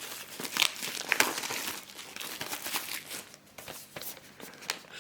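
Plastic shrink-wrap crinkling and rustling with irregular crackles as it is torn and peeled off a 4K Blu-ray steelbook case.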